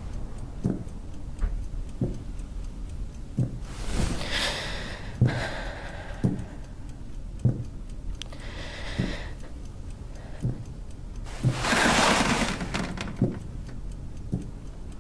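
Slow, steady ticking of a clock in a quiet room, a little under one tick a second. Three longer soft rustling hisses come in between, about four, nine and twelve seconds in.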